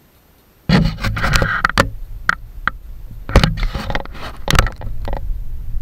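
A sudden run of loud knocks, clatter and scraping as objects, probably wood and tools, are handled and moved close to the microphone, with several sharp strikes.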